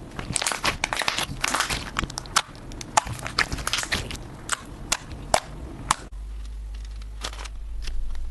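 Slime being pressed and worked by hand, giving rapid crackling pops and clicks of squeezed air bubbles; about six seconds in it cuts to a quieter stretch with only a few scattered clicks over a low hum.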